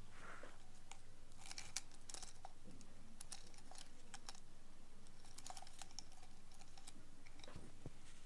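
An ear pick scraping inside an ear canal, making irregular groups of crackling clicks over a low steady hiss.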